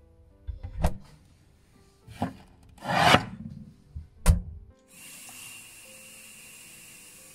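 A few knocks and a longer scraping rub, ending in a sharp click, followed by a steady hiss.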